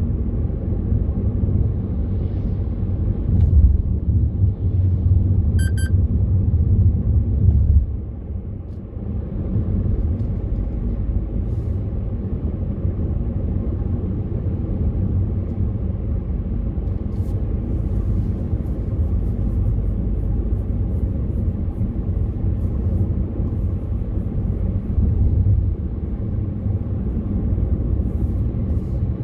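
Steady low road and engine rumble inside the cabin of a car driving along a country road. A short electronic beep sounds once about six seconds in.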